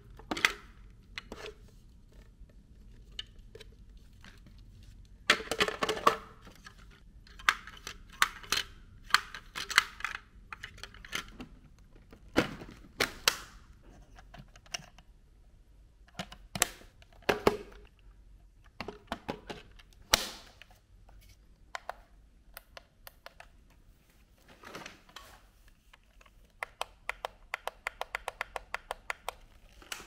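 Hard plastic parts of an Enolux S7 Lite wet-dry vacuum being handled: scattered clicks and knocks as the water tanks and caps are taken off, opened and fitted back, with a quick run of clicks near the end.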